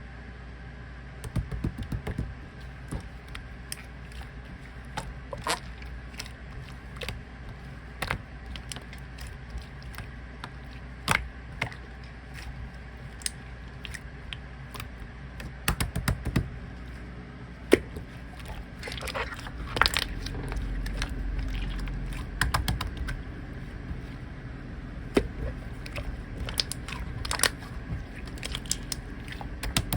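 Hands playing with slime, squeezing and pressing it, giving irregular small clicks, pops and crackles, busiest a little past the middle.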